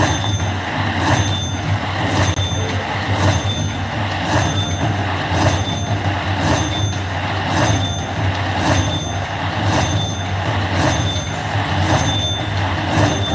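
Slot machine bonus-round sounds: a short electronic chime repeats evenly about twice a second over a steady low hum of casino noise.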